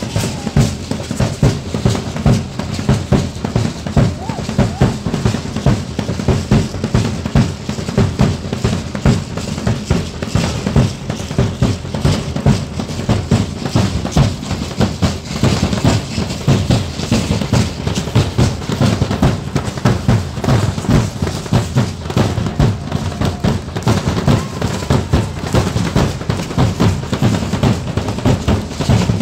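Bass drum and snare drums playing a fast, steady drumbeat for Mexican danza apache dancing.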